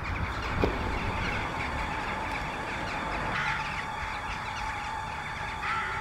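A large flock of crows calling all at once, a dense chatter of short overlapping calls, over a low steady rumble and a held steady tone.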